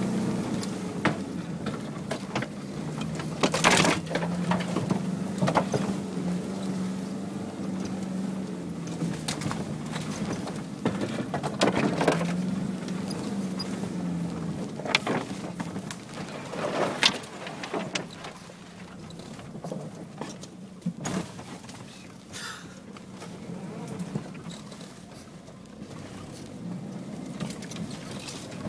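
Engine drone heard from inside the cabin of an off-road vehicle crawling over a rough forest track, its pitch rising and falling gently, with sharp knocks and bangs from the body and suspension over bumps every few seconds. It gets quieter after about two-thirds of the way through.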